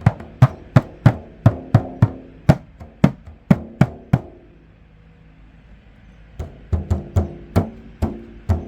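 Budget 10-inch shamanic frame drum tapped with the fingers, each tap ringing briefly. The taps come about two a second, pause for about two seconds near the middle, then resume more quickly.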